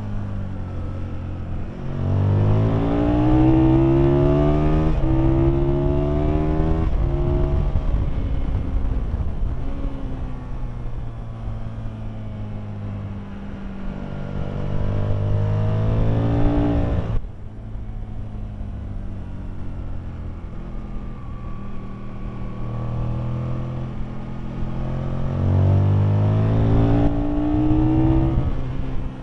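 Aprilia Tuono motorcycle engine on track under hard acceleration, its note climbing and dropping back with each upshift. About halfway through it climbs to a peak and then cuts off suddenly as the throttle is shut. It pulls through the gears again near the end, over a steady rush of wind.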